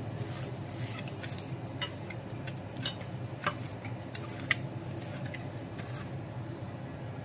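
Wet chopped spinach being squeezed and tossed by hand in a stainless steel bowl: soft squelching and rustling of leaves with scattered sharp little clicks, a few louder ones near the middle. A steady low hum runs underneath.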